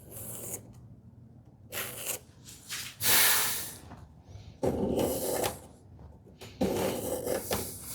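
Wooden drawer box rubbing in its tight-fitting opening as it is pushed in and pulled out. There are several short scraping strokes, the loudest about three seconds in.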